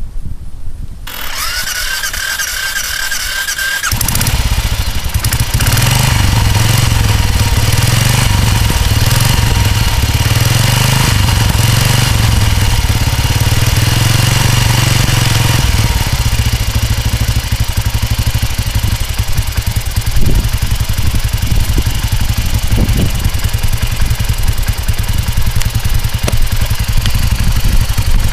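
2005 Royal Enfield single-cylinder motorcycle engine being started: a starter whines for about three seconds, then the engine catches and runs. Its speed rises and falls for several seconds before it settles into a steady idle about halfway through.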